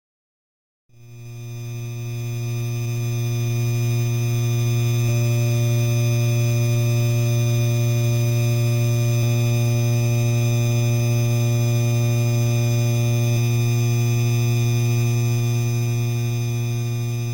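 Electric fan motor running with a loud, steady hum and fainter higher whines above it. It starts abruptly about a second in and grows louder over the next few seconds.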